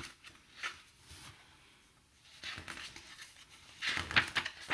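Paper pages of a picture book rustling and clicking as they are handled and turned, busiest near the end.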